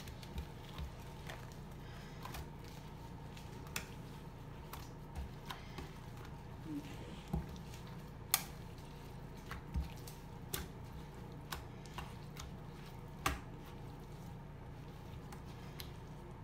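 Wet cotton T-shirt being kneaded and pressed into Kool-Aid dye paste in a sink, giving irregular soft wet squelches and light clicks over a steady low hum.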